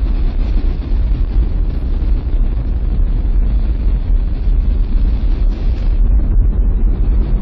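Space Shuttle lifting off, its two solid rocket boosters and three main engines firing: a loud, steady, deep rumble that does not let up.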